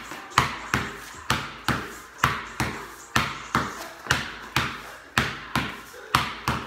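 A basketball dribbled hard and low on a concrete garage floor, a steady run of bounces at about three a second, each with a short echo.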